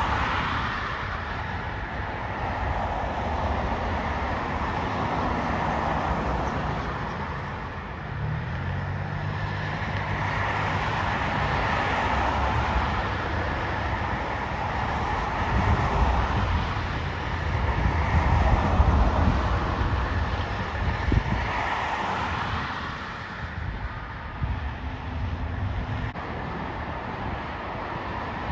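Steady outdoor engine rumble with a wash of noise that swells and fades every few seconds; about a third of the way in, a pitched engine drone rises out of it for a couple of seconds.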